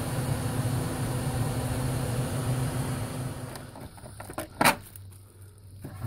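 Heat pump air handler's blower running with a steady hum, then winding down and stopping about three and a half seconds in, after the electric heat strips have been switched off and their sequencer has released. A few sharp clicks and a knock follow.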